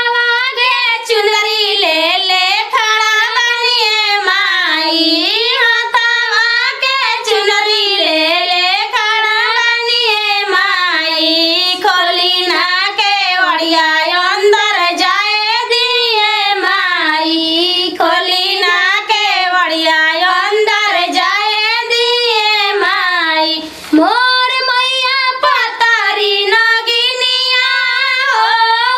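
Band baja (Indian wedding procession band) music: a single high melody line that bends and slides continuously, loud and steady, with one brief break near the end.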